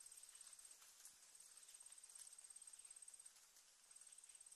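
Near silence with a faint, high-pitched insect trill, like a cricket or grasshopper stridulating; it comes in runs of about two seconds with short breaks between them.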